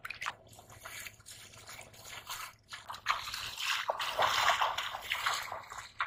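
Shallow water splashing and sloshing in irregular bursts, louder over the second half: a stranded catfish thrashing in a shallow channel, and bare feet splashing through ankle-deep water.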